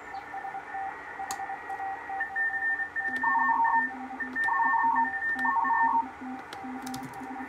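Shortwave radio receiver audio: several Morse code signals beeping at once at different pitches over band hiss, each tone keyed on and off in short and long pieces, a low one getting steady from about three seconds in. A few faint clicks.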